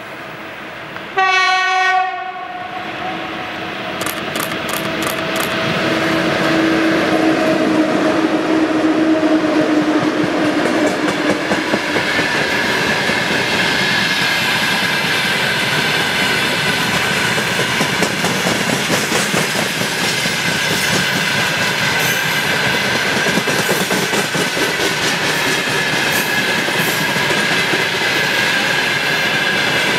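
Electric locomotive sounds a short horn blast about a second in as it approaches with a freight train, followed by a steady drone as it passes. Then the freight wagons roll past close by, with wheels clattering over rail joints and a steady ringing whine.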